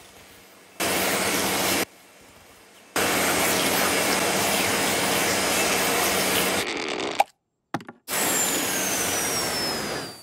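Cartoon vacuum cleaner running in bursts. It runs briefly about a second in, then for about four seconds from about three seconds in, and cuts off suddenly. After a short silence it starts again with a falling whistle over it and fades out near the end.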